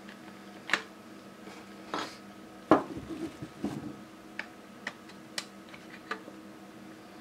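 Plastic clicks and knocks from a 12A laser toner cartridge being handled and turned over in the hands. They come at irregular intervals, with one louder knock about three seconds in followed by a brief rattle. A low steady hum runs underneath.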